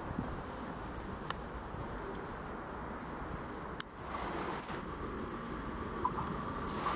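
Trenitalia ETR 425 'Jazz' electric train approaching around a curve, faint at first, with a thin wheel squeal growing from about halfway on. Before it, a few short high chirps, and a single sharp click a little before halfway.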